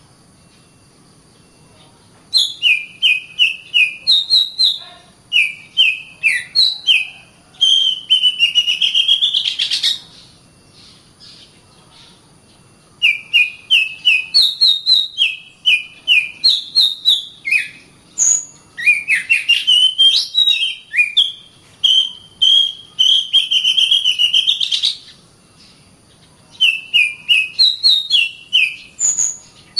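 Oriental magpie-robin (kacer) singing in three spells of quick, repeated whistled notes and short rising and falling phrases, with pauses of a couple of seconds between them.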